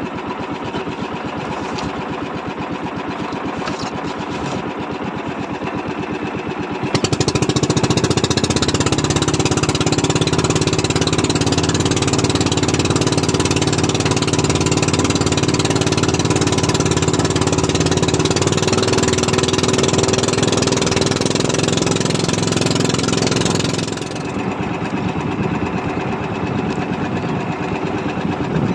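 Small fishing boat's engine running steadily with a fast even beat, opened up louder about a quarter of the way in and throttled back down several seconds before the end.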